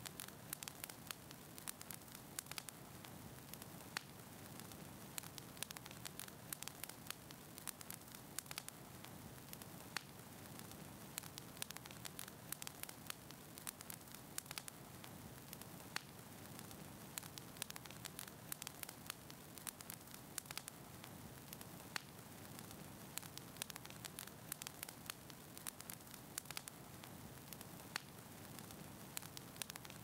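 Fire crackling: a faint, steady hiss with frequent, irregular sharp pops and snaps.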